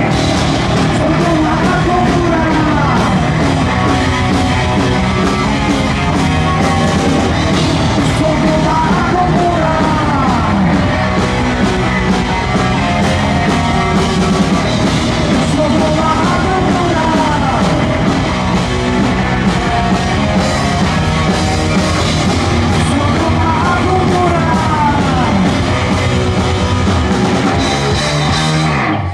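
Live rock band playing loud: electric guitars, bass guitar and drum kit, with a lead line that bends and wavers in pitch. The music stops abruptly near the end.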